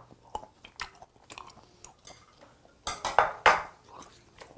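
Close-miked chewing of a mouthful of grilled flounder, with scattered small clicks and mouth sounds and a few louder ones about three seconds in.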